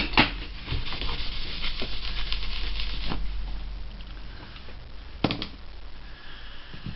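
Small sharp clicks and light rustling and ticking from hands handling small plastic parts and a super glue tube on a work surface: two clicks at the start, a stretch of fine ticking for a couple of seconds, then another click about five seconds in.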